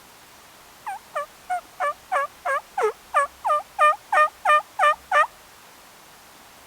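A series of about fourteen turkey yelps, about three a second, growing louder as the series goes on.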